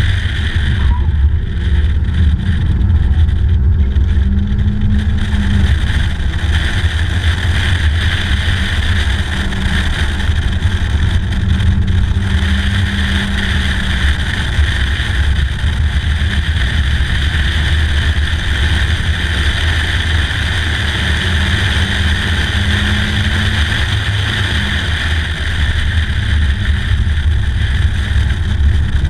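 Stock 2003 Mazda Miata's 1.8-litre four-cylinder engine running at track speed, mixed with heavy wind rush from the open top on the microphone. The sound stays steady, with no sharp shifts or revs.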